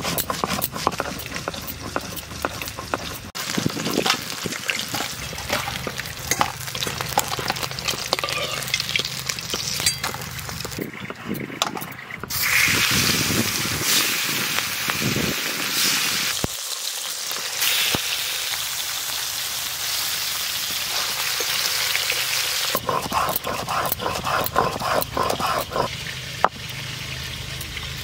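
Chillies and whole spices being ground on a flat stone slab with a stone roller (sil-nora), a rough, rhythmic scraping of stone on stone. From about twelve seconds in, the grinding gives way for about ten seconds to fish pieces sizzling steadily as they fry in hot mustard oil in a kadai, and then the grinding returns.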